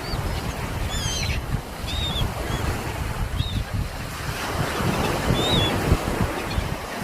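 Sea surf washing steadily onto the shore, with wind gusting on the microphone. A few short bird chirps sound now and then over it.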